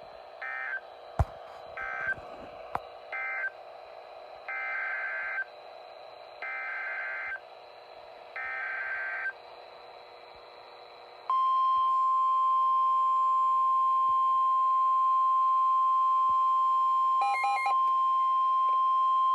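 A run of six touch-tone beeps over a faint hum, three short then three longer. About 11 s in, the loud, steady single-pitch 1050 Hz weather radio warning alarm tone sounds, the signal that a warning message is about to follow. It has a brief garbled burst near its end.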